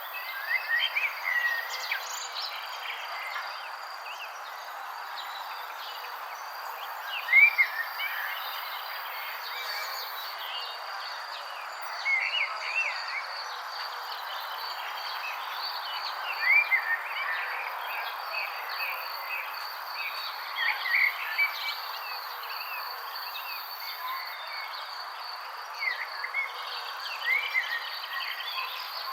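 Wild birds chirping in short bursts of quick rising and falling notes, one phrase every few seconds, over a steady high-pitched insect trill like a cricket's and a constant background hiss.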